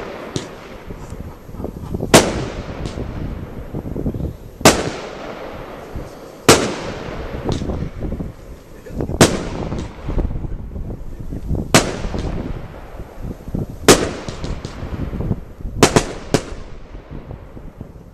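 A fireworks battery (cake) firing aerial shots one after another. There is a sharp bang about every two to two and a half seconds, eight in all, the last two close together, with smaller pops and crackle between them.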